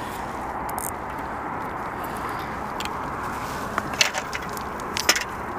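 Steady outdoor background rush, with a few sharp clicks and knocks from about four seconds in, the loudest near four and five seconds: footsteps and gear knocking on the stones of a rocky riverbank.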